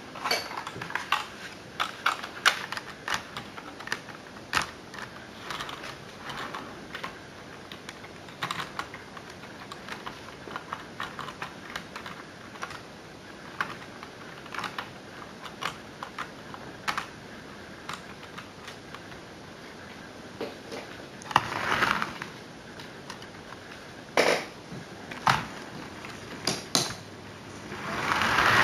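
Model train running on the layout's track: scattered sharp clicks and ticks, growing into a rising rumble near the end as the train draws close.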